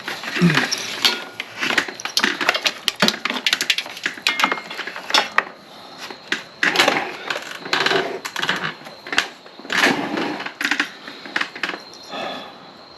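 Irregular clicking, tapping and rustling from hands handling wiring and small plastic and metal parts during an installation job.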